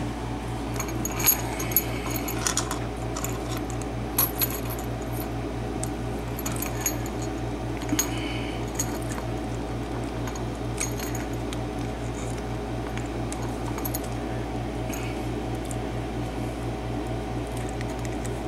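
Pliers working on a brass Trelock euro cylinder lock as it is taken apart. Scattered light metallic clicks and taps, with the keys hanging in the lock jingling, over a steady low hum.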